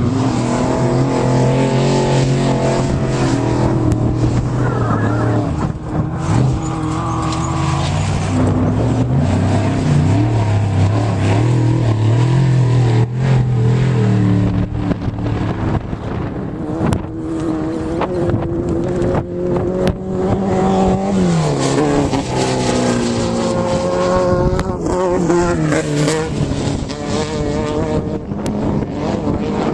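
Off-road vehicle engine running hard, its pitch rising and falling repeatedly as it speeds up and slows, with noise and frequent short knocks and rattles throughout.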